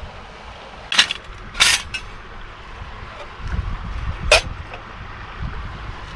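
Sharp metal clinks from setting up a stainless steel Bushbox stove and setting a brass Trangia spirit burner into it: three clinks, about a second in, just before two seconds, and a little after four seconds. A low wind rumble on the microphone runs underneath.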